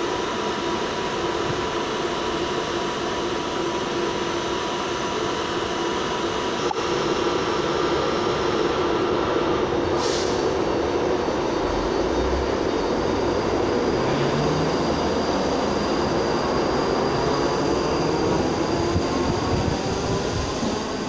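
ScotRail Class 334 electric multiple unit standing at an underground platform with a steady hum from its equipment, then pulling away with a whine that rises in pitch through the second half. A sharp click about ten seconds in.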